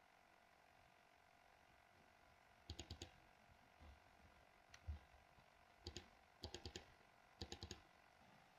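Faint computer mouse clicks, mostly in quick runs of three or four like double-clicks, with a few single clicks between.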